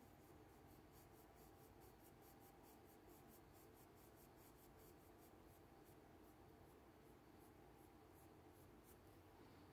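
Faint scratching of a colored pencil on paper, a quick run of short repeated strokes as fur lines are drawn.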